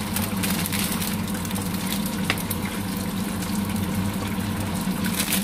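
Chicken and broth simmering and sizzling in a wok as shredded cabbage and carrots are tipped in and stirred with a ladle, with a couple of sharp clicks from the ladle against the pan. A steady low hum runs underneath.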